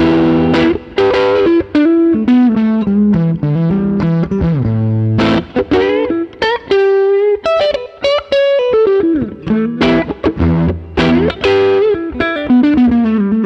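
Harley Benton SC-550 Deluxe electric guitar played solo: quick runs of picked single notes mixed with a few held notes, and a sliding fall in pitch a little past the middle.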